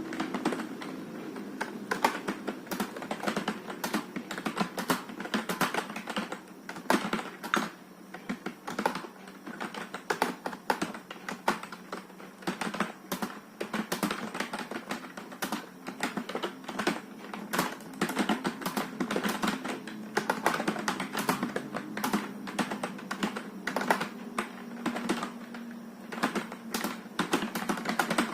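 Touch typing on a computer keyboard: key clicks in quick, irregular runs with brief pauses, at a typing-test pace of about 32 words per minute, over a steady low hum.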